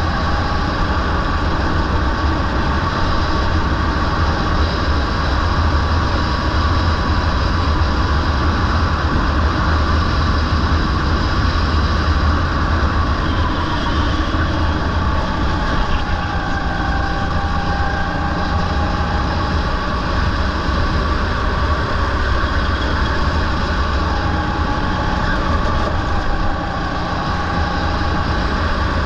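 Rental go-kart engine running hard through a lap, its pitch dipping and climbing with the kart's speed through the corners, over a heavy low rumble of wind on the onboard microphone.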